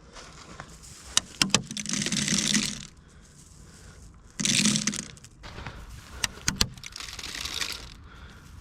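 Rustling and scuffing of an airsoft player's gear and clothing in three bursts as he moves, with a few sharp clicks or snaps about a second in and again past six seconds.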